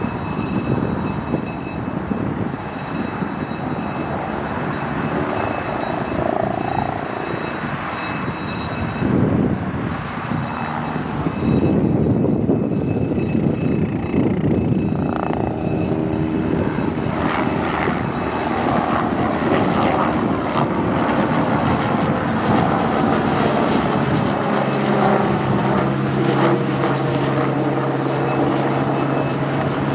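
Helicopter flying overhead, its rotor and turbine noise continuous and growing louder about a third of the way in, with a steady low hum joining near the end.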